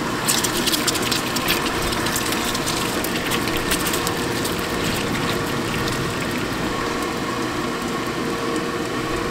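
Scallion pancakes deep-frying in hot oil: a dense, steady sizzle of bubbling oil full of fine crackles, busiest in the first few seconds, over a faint steady hum.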